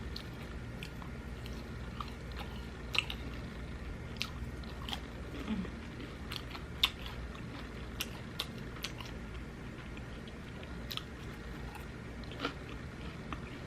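Close-miked mouth sounds of someone biting and chewing fried Cajun corn on the cob, with scattered sharp crunchy clicks every half second or so and a steady low hum underneath.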